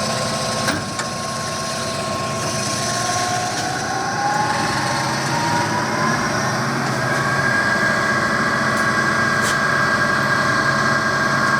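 Clausing Colchester VS12 variable-speed lathe running in its low range, a steady machine hum with a whine that rises in pitch over several seconds as the spindle speeds up, then holds level.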